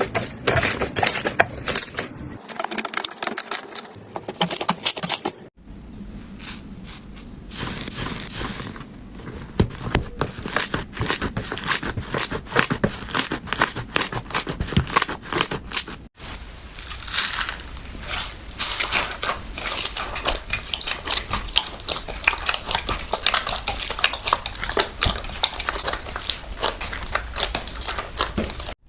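Slime being squeezed and pressed by hand, giving dense, rapid crackling and popping clicks. The sound breaks off abruptly twice, where one clip cuts to the next.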